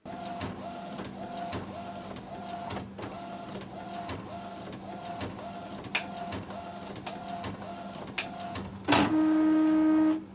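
Epson SureColor inkjet photo printer printing: the mechanism repeats a short whirring tone about twice a second with light clicks over a steady low hum. Near the end a much louder steady buzz sounds for about a second and cuts off suddenly.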